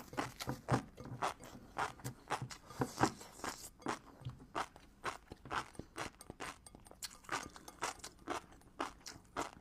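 Close-miked chewing and biting of seafood: an irregular run of short, wet crunches, a few each second.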